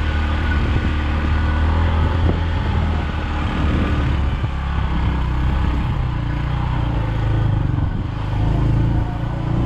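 Motorcycle engine running on the move, with a steady low engine note that shifts partway through and climbs higher near the end as the bike speeds up.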